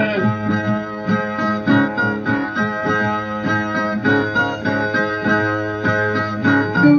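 Brazilian ten-string viola plucked in a rhythmic instrumental interlude between sung stanzas of a repente, with no voice.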